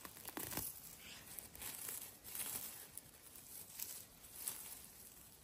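Irregular rustling and crackling of someone moving about on the forest floor among the mushrooms, with short soft scrapes and crackles.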